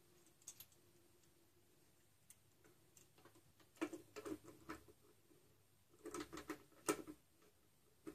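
Faint clicks and light metal clinks of steel gears and shafts being handled and seated by hand in a Wheel Horse garden tractor's 8-speed transmission case, in two short flurries, about four and six seconds in.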